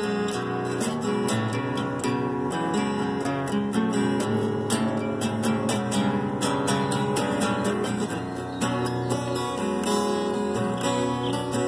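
Acoustic guitar played in chords, with a quick, even rhythm of strokes and the chords changing as it goes.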